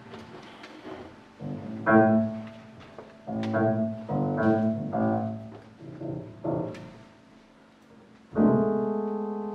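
Grand piano playing a slow, sparse jazz introduction: separate chords struck and left to fade, with pauses between them, and a loud chord about eight seconds in that rings on and slowly dies away.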